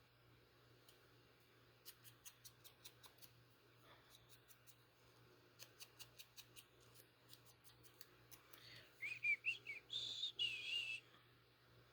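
Scissors snipping paper in quick runs of small clicks, several a second. Near the end comes a short, wavering high whistle, the loudest sound.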